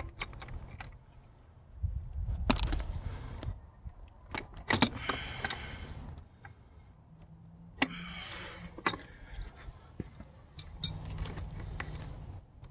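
Small metal parts and tools clicking and clinking as hands work at a pit bike's handlebar mount, with two brief squeaky, ringing scrapes of metal about 5 and 8 seconds in, over a low rumble.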